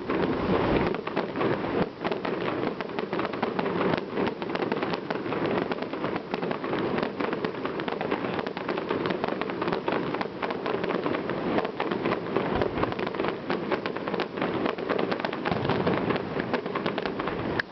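Fireworks crackling and popping in a dense, continuous run of many sharp cracks.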